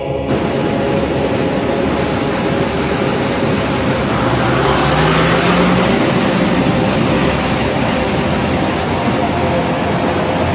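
Loud, steady rush of a flooded river torrent, with a short rising tone about five seconds in.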